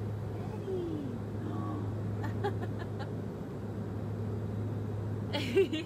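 Steady low drone of a jet airliner's cabin in flight. Faint glides in pitch and a few light clicks sit under it, and a short, louder vocal sound comes near the end.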